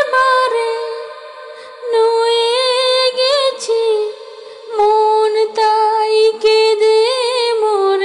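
A woman's voice singing a Bengali gazal alone, in three long phrases of held, wavering notes with short breaths between them.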